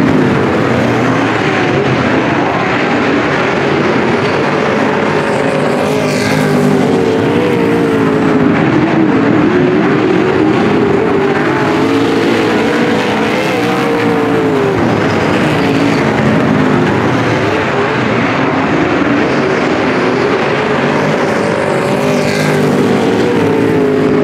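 A pack of Supersaloon dirt-track race cars' V8 engines running together, loud and continuous. Their pitch rises and falls in long swells as the cars accelerate down the straights and back off for the turns.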